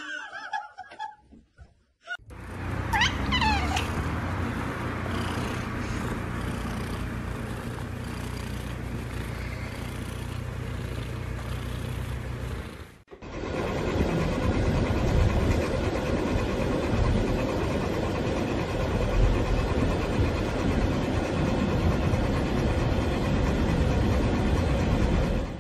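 A long-haired tabby cat purring steadily, with a short meow-like call just after the purring starts. About halfway through it cuts to the steady hum of road noise inside a moving car's cabin.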